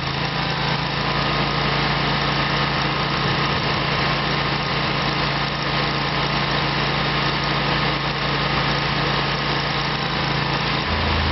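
Stump grinder engine running steadily, with a noisy mechanical rush over its low drone; the engine note shifts lower just before the end.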